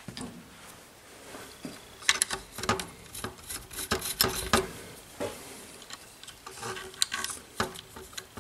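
Irregular small clicks and scraping of hands handling small metal parts against a model helicopter's frame, as canopy standoffs are fitted and threaded in.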